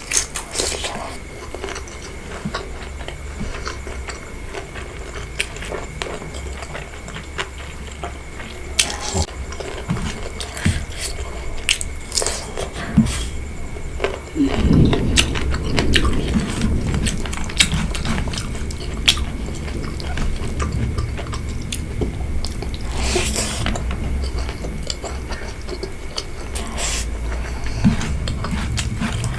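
Close-miked eating of pork curry, bamboo shoot and rice: chewing with many short, sharp clicks, growing fuller and heavier from about halfway through.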